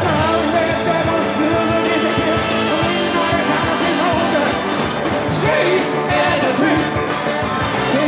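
Rock and roll band playing with a lead singer, guitars and drums.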